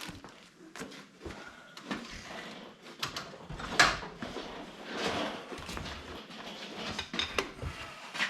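Metal tools and parts clinking and rattling as they are handled and rummaged through on a workbench, with one sharper clank about four seconds in.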